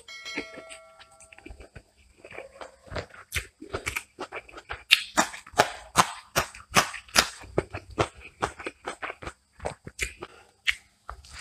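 Close-miked eating sounds of a man chewing chicken and rice: a dense run of wet mouth clicks and smacks, several a second, from about two seconds in.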